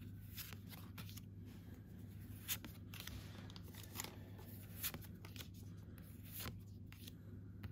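Pokémon trading cards being slid off a hand-held stack and moved to the back one at a time, giving faint card-on-card swishes and snaps every second or so. A low steady hum runs underneath.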